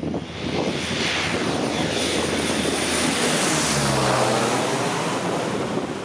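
Convair CV-580 air tanker's twin Allison 501 turboprops on a low pass, the propeller drone swelling to its loudest a little past halfway, then falling in pitch as the aircraft goes by.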